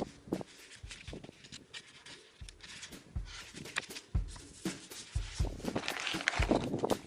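Irregular low knocks and thumps, about one a second, with light rustling and clicks, busiest near the end.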